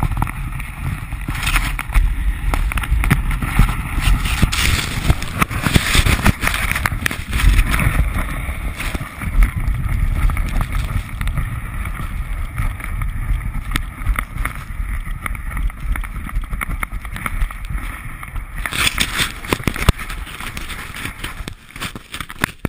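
Wind buffeting an action camera's microphone as a low, gusting rumble, mixed with the hiss and scrape of snow as a snowboarder slides downhill.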